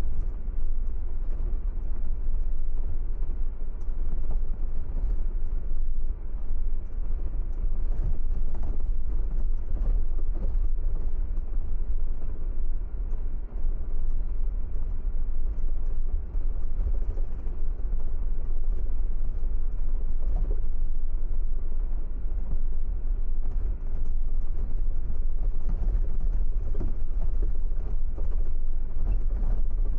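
A car driving along a road: a steady low rumble of road and engine noise with scattered small ticks.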